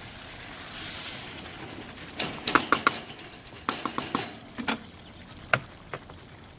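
A metal cooking utensil knocking and scraping against a karahi pan: quick clusters of sharp, slightly ringing clinks about two seconds in and again near four seconds, then a single strike near the end.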